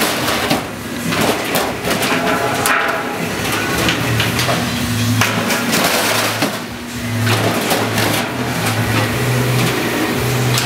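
Berridge C-21 roll former running a panel job, with continuous rattling and knocking from the machine. From about halfway through, a low hum comes and goes in short stretches as the drive starts and stops.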